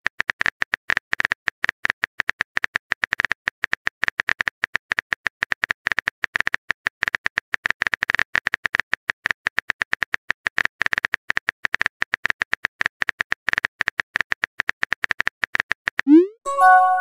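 Phone keyboard typing sound effect: a fast, even stream of key-tap clicks. About a second before the end, a quick rising swoosh and a short chime of a few notes sound as the message is sent.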